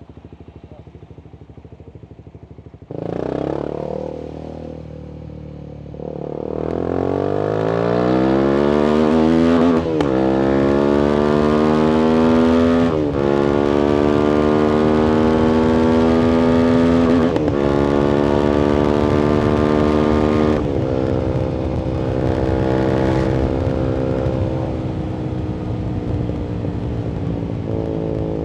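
Voge 300AC motorcycle with a full-system exhaust, reflashed for more fuel and with an opened airbox: idling, a short throttle blip about three seconds in, then pulling away and accelerating through the gears, the engine note rising and dropping at four upshifts. After the last shift it holds a steadier, slowly easing note, starting to rise again near the end.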